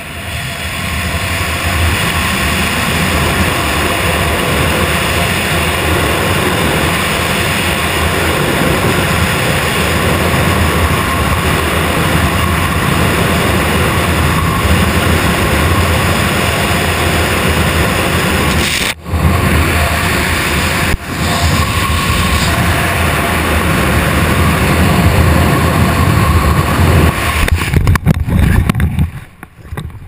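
Rushing wind buffeting a helmet-mounted camera's microphone during a wingsuit flight. It builds over the first second or two after the exit, holds steady and loud with two brief dips, and dies away near the end.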